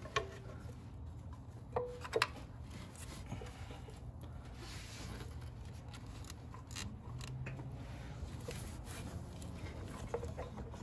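Plastic thermostat housing being handled and pushed onto the engine over the coolant tube's O-ring: a few short clicks and knocks, two close together about two seconds in and more near the end, over a low steady hum.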